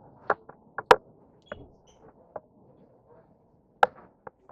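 Scattered sharp knocks and clicks, about seven over four seconds, the loudest about a second in.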